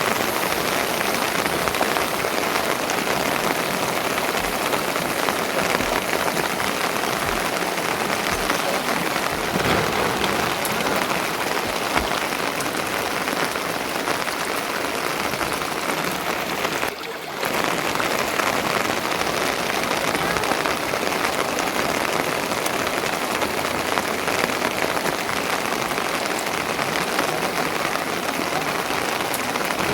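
Steady rain falling, a dense even hiss that dips for a moment about halfway through.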